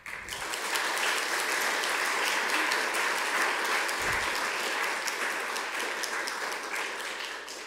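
Audience applauding, many hands clapping steadily and thinning a little near the end.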